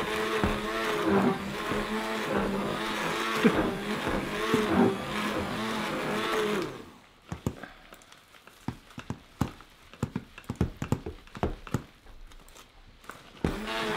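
Electric stick blender running in thick hot-process soap paste, its motor pitch wavering as the blade works through the batter. It cuts off about seven seconds in, leaving scattered knocks and clicks, then starts up again near the end.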